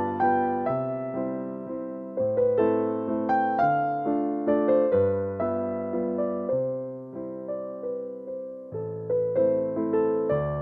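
Solo piano music: a slow, gentle melody over bass notes, each note struck and fading away.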